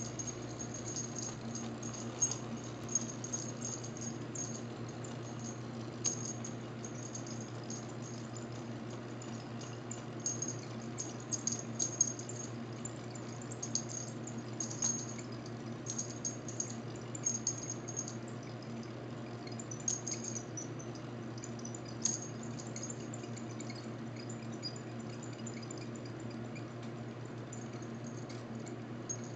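Wind-up clockwork mechanism of an antique Roullet and Decamps automaton bear running as it turns its arms: a steady whir with scattered light clicks and rattles.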